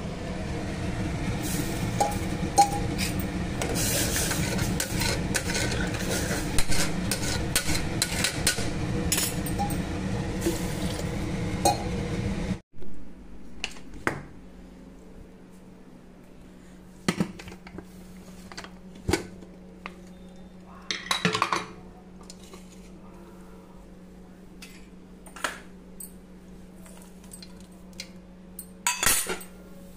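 Aluminium pressure cooker on a gas stove. For about the first twelve seconds a loud crackling hiss from the steaming contents, with spoon clinks. It then cuts off abruptly, and scattered metallic clinks and knocks of the lid and a spoon on the cooker follow over a low steady hum.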